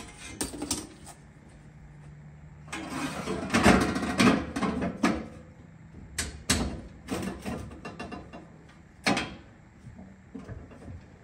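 Knocks, clunks and scraping from handling an aluminum fuel cell in a Jeep's rear tub: a few light knocks at first, a louder couple of seconds of scraping and clatter, then several separate sharp knocks.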